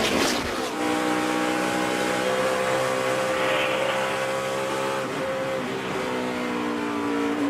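NASCAR stock car V8 engine running at a steady, even pitch, after a brief noisy rush in the first moment.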